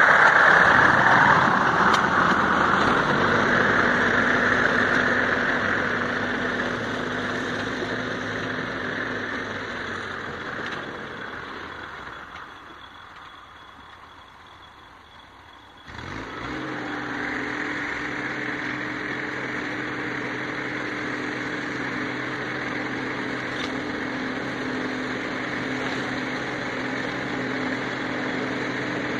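A New Holland 7630 tractor's diesel engine and its articulated boom mower run loud and close, then fade as the machine moves off. About sixteen seconds in the sound comes back suddenly as a steady engine drone, with the mower running as the tractor works back toward the camera.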